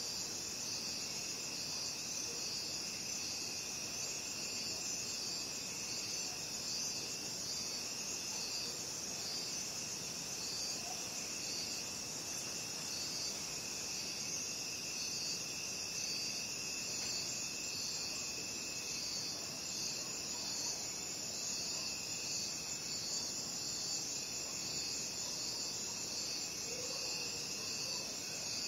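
Night chorus of crickets chirping steadily. A high, evenly pulsing chirp is layered over a fainter, lower continuous trill.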